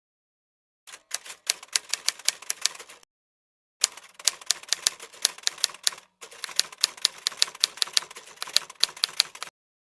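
Typing sound effect: rapid key clicks, about five or six a second, in three runs with short silent gaps between them.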